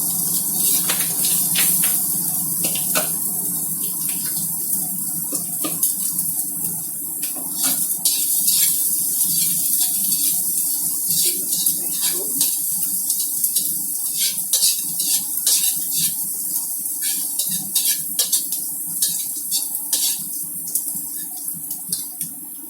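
Sliced shallots and garlic sizzling in hot oil in a pan: a steady hiss with scattered pops and crackles.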